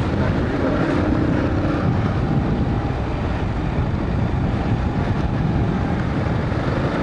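Dual-sport motorcycle running along a dirt trail, its engine drone mixed with steady wind rushing over the helmet microphone.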